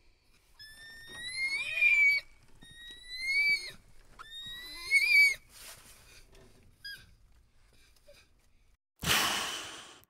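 An animal's high calls: three calls about a second long, each rising in pitch, followed by a shorter falling call, then a brief hiss near the end.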